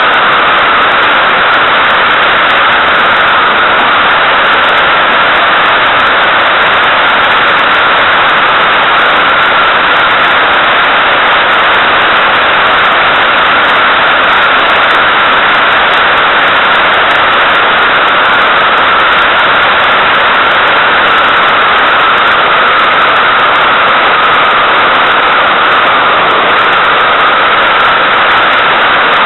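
Airflow rushing steadily over a small camera mounted on the outside of an SZD-50 Puchacz glider in flight, a loud, unbroken noise with a hollow tone in it that wavers slightly in pitch.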